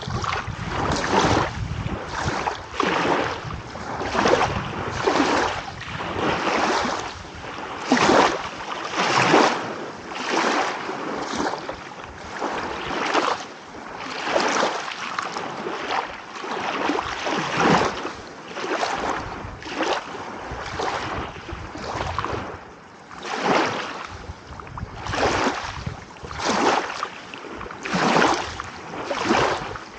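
Small sea waves lapping and splashing in quick succession, a fresh splash about every second with the loudness surging and falling.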